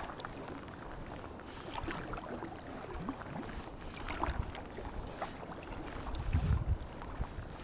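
Double-bladed kayak paddle dipping into calm sea, with water splashing and dripping off the blades at each stroke. A low rumble swells near the end.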